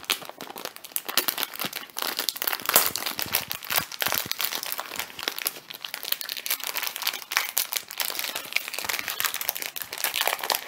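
Plastic wrapper of a baseball card rack pack being opened by hand, crinkling and crackling in a dense, irregular run.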